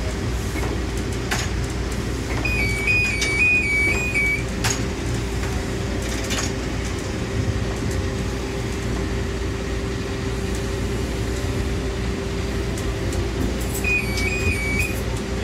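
Norristown High Speed Line electric rail car running, heard from inside: a steady rumble with a constant motor hum and occasional clicks from the track. A high two-tone electronic signal warbles briefly twice, a couple of seconds in and again near the end.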